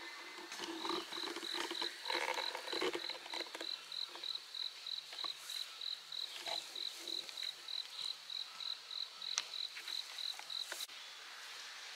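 Insect chirping in an even, high-pitched pulse, about three chirps a second, stopping about a second before the end.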